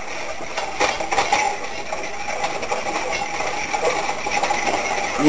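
Wire whisk stirring a flour-and-butter roux in a skillet, with light metal clinks against the pan over a steady sizzling hiss.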